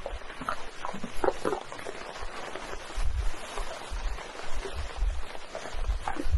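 Outdoor field recording with gusty low wind rumble on the microphone. A few short, faint sounds are scattered through it at irregular intervals, which the recordist takes for the vocals of a Sasquatch or some unknown creature.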